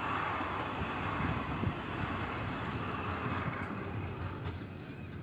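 Traffic noise: a passing vehicle's rumble that swells at the start and slowly fades toward the end, with some wind on the microphone.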